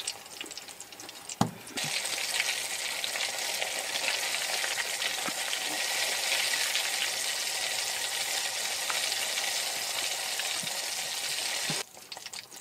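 Hot oil sizzling and crackling in a frying pan, a dense even hiss that begins abruptly a couple of seconds in and cuts off abruptly near the end. A single sharp knock comes just before it starts.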